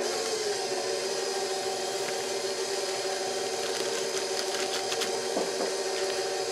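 Stand mixer with a paddle attachment switching on and running steadily, its motor giving an even hum as it beats a thick cream cheese filling.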